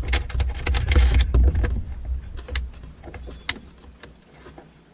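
Handling noise from setting up a soldering station and iron: a quick run of light clicks and knocks over a low rumble for about the first two seconds, then a few scattered clicks that thin out.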